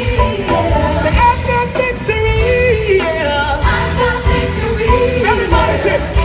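Live gospel music: a band with a strong steady beat, and voices singing and holding long notes over it.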